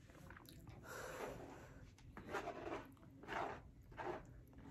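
Close-up eating sounds: a plastic fork scraping across a paper plate in a few short strokes, with soft chewing between them.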